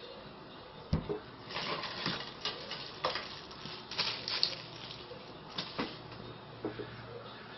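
Crinkling and rustling of a crumpled white plastic bag being handled in the hands, in quick irregular crackles, with a sharp knock about a second in and a few clicks near the end.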